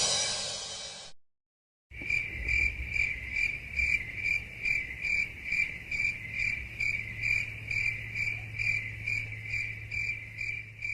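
A previous sound effect fades out at the start. About two seconds in, a cricket chirping sound effect begins: a steady, high, pulsing chirp repeating about two to three times a second, the stock 'crickets' sound used to mark an awkward silence.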